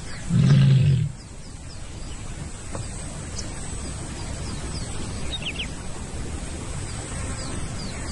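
A lion gives one short, loud, low roar about half a second in. After it, a steady low background hum continues with faint, scattered bird chirps.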